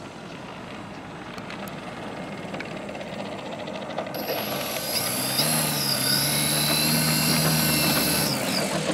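Dualsky GA6000-8 brushless electric outrunner motor and propeller of a large RC aerobatic plane taxiing at low throttle: a steady whine with a high thin tone above it. It grows louder as the plane comes near, then stops abruptly near the end.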